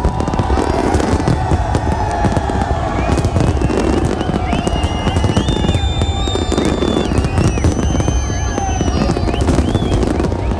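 Fireworks display: a dense, continuous barrage of bangs and crackling, with high held tones sounding above it.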